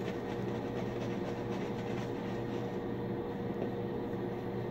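Bathroom exhaust fan running with a steady hum made of several constant low tones, with faint swishing of a shaving brush working lather over the face.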